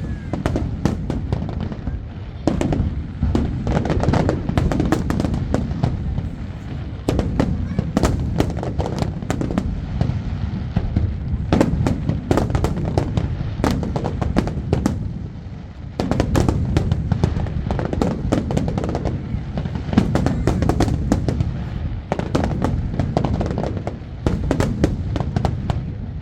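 Fireworks display: a dense, continuous barrage of sharp bangs and crackling over a steady low rumble, easing briefly a couple of times.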